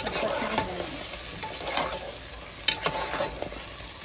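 Chicken curry sizzling in its oil on high heat as a spoon stirs and scrapes through it in the pot, at the bhuna stage with no water added. There is one sharp clack of the spoon against the pot a little under three seconds in.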